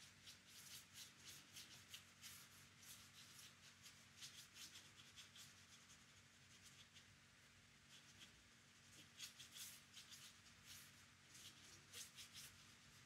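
Faint scratchy brushing of a watercolour paintbrush's bristles on paper, quick short strokes in runs with brief pauses.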